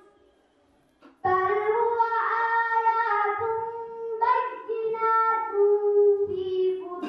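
A girl chanting a melodic Arabic recitation into a microphone, in long held, ornamented notes. It pauses for about a second near the start, then resumes.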